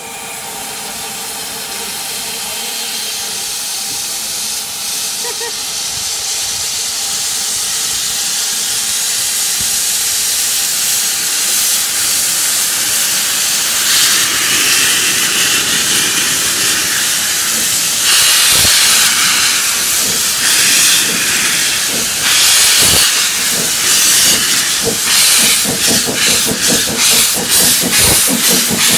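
Ffestiniog Railway Double Fairlie steam locomotive David Lloyd George hissing steam from its open cylinder drain cocks as it starts away, the hiss growing louder. In the last few seconds exhaust beats begin and quicken as it gets moving.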